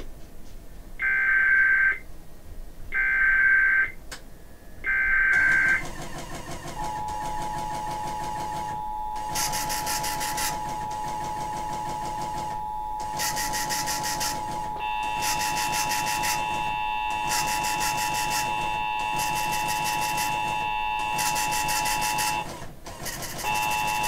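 Emergency Alert System test received off-air on an FM station: three one-second screeching bursts of SAME digital header data, then the steady two-tone EAS attention signal. The tone breaks briefly near the end, over a hissy background that surges in and out.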